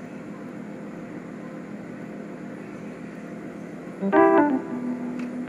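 A low steady hum, then background music with keyboard notes starts about four seconds in.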